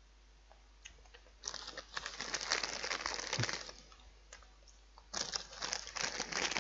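Plastic crisp packet crinkling as it is handled, in two bouts: one starting about a second and a half in, the other near the end.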